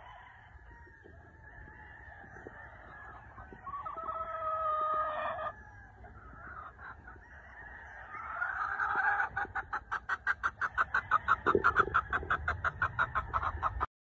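Gamefowl chickens: a rooster crows once for about two seconds near the middle. Toward the end a chicken clucks rapidly, about six clucks a second.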